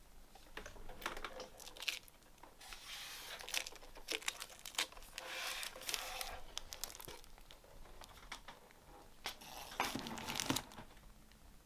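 Paper crinkling and rustling in short bursts, with light clicks, as sheets are handled by hand.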